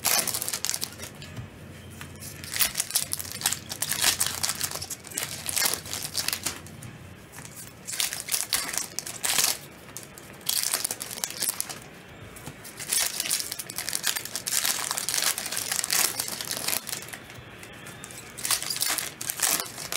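Trading card pack wrappers crinkling and tearing in repeated bursts as packs are ripped open and the cards are handled.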